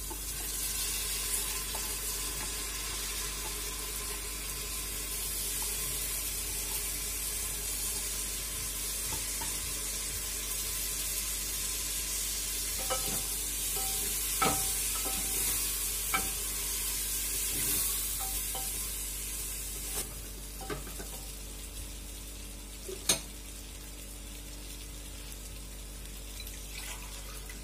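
Rice frying and sizzling in an aluminium pressure cooker as it is stirred and roasted with a wooden spatula. The steady sizzle is broken by scattered knocks of the spatula against the pot, the loudest near the end.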